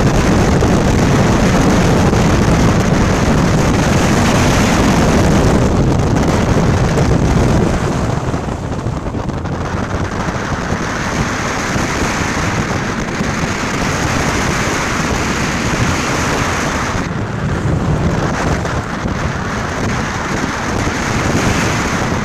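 Heavy wind noise buffeting a microphone on the outside of a Mazda Miata's door at speed, with the car's four-cylinder engine and tyres underneath. It is loudest for the first eight seconds or so, then eases a little and rises and falls.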